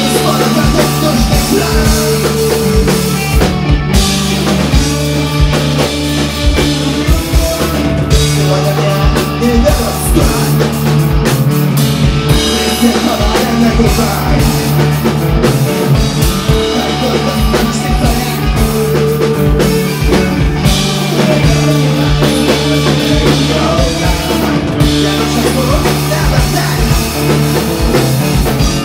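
Live rock band playing loud, with a drum kit hitting throughout over sustained instruments.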